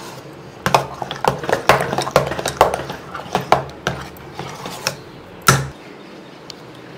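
A spoon clinking and scraping against a stainless steel saucepan while stirring thick ragi porridge: a quick run of knocks, then one sharper knock about five and a half seconds in.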